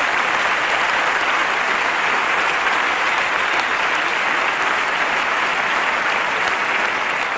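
Large theatre audience applauding a comedian's punchline: a steady, even clapping that holds at one level.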